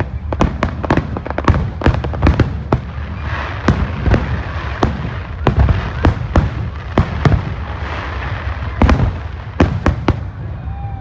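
Fireworks going off in quick, irregular succession: many sharp bangs over a constant low rumble, with a stretch of crackling about three to five seconds in.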